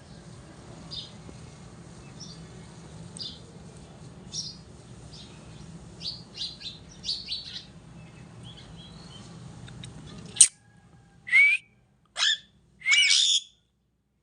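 Parrot chirping in short, soft calls over a low steady hum. About ten seconds in, a sharp click is followed by three loud whistles that bend up and down in pitch.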